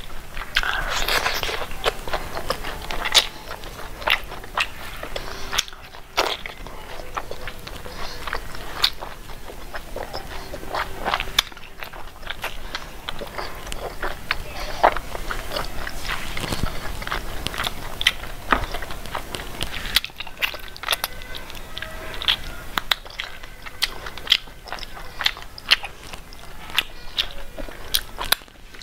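Close-up chewing of pork: crunching bites, smacking and many short sharp mouth clicks, one after another.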